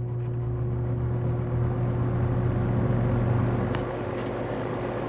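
Vintage Superelectric box fan starting up on low speed: its electric motor hums steadily under a rush of air that builds for about three seconds, then settles. A light click comes a little before the end.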